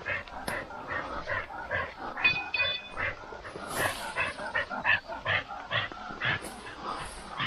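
A bird dog panting in quick, rhythmic breaths as it works through undergrowth, with a short high whine a little over two seconds in.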